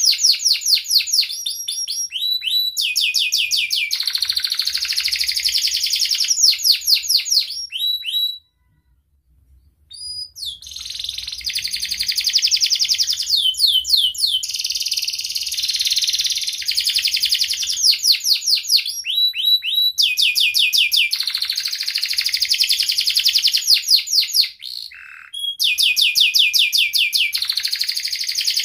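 Domestic canary singing: long rolling trills of rapid, high repeated notes and sharp chirps, broken by a pause of about two seconds about a third of the way in.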